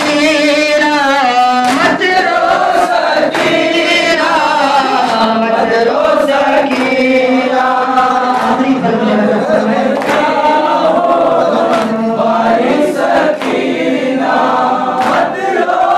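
Men's voices chanting an Urdu noha (Shia mourning lament) together, with sharp hand slaps of chest-beating (matam) recurring in time with the chant.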